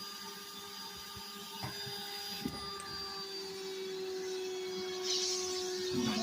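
Vacuum cleaner running through a long flexible dryer-vent hose attachment: a steady motor whine with air rushing, a couple of faint knocks, and a louder hiss of suction in the last second or so.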